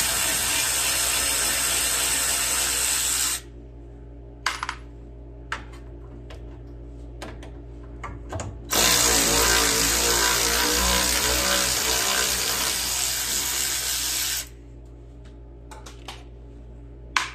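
Cordless electric ratchet running as it backs out the 10 mm carburetor mounting bolts. One run stops about three seconds in and a second runs from about nine to fourteen seconds in, with small clicks and knocks of handling in between.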